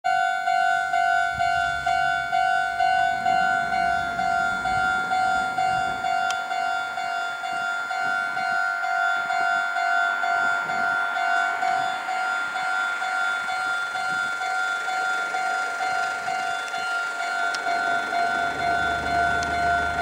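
Japanese railway level-crossing alarm ringing: the electronic crossing bell sounds a steady two-tone ding that repeats evenly about two to three times a second, warning that a train is approaching.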